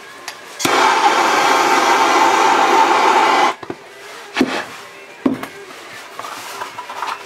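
Handheld gas torch flame hissing steadily for about three seconds, starting and stopping abruptly, as it melts the cut end of braided PET wire sheath so the end won't fray. A couple of short knocks follow.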